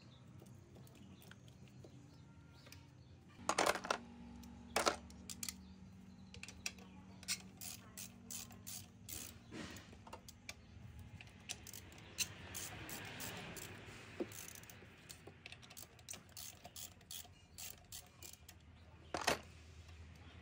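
Socket ratchet wrench clicking in quick runs as the fuel rail bolts are worked loose, with a few louder metal knocks of tools against the engine.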